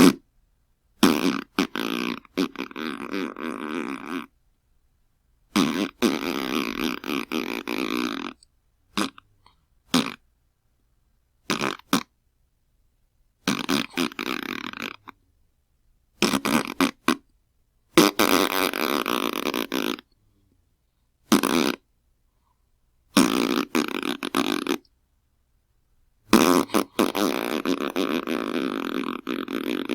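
A series of fart sound effects, about ten of them, ranging from a short blip of under a second to long buzzy ones of three or four seconds, each cut off into dead silence before the next.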